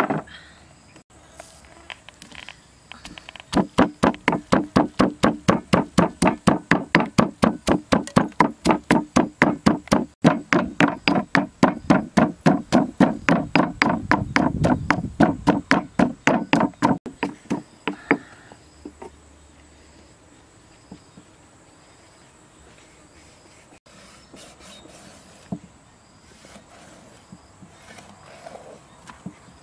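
Pestle pounding in a stone mortar at a steady pace of about four strikes a second, starting a few seconds in and stopping a little past halfway.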